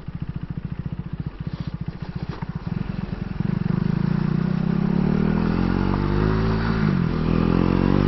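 KTM Duke 390's single-cylinder engine at low revs, each firing pulse distinct, then accelerating with the revs rising steadily from about three and a half seconds in and a brief dip near seven seconds as it shifts up.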